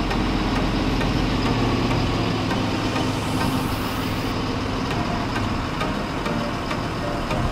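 Large mobile crane's diesel engine running steadily while it hoists and swings a boat.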